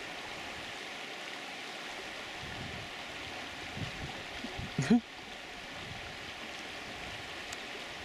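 Steady rush of running stream water, with one brief louder sound about five seconds in.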